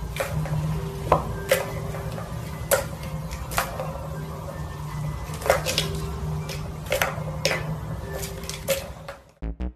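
Plastic ball rolling round the tracks of a cat tower toy with a steady low rumble, and about eight sharp plastic clacks at uneven intervals as kittens bat at it.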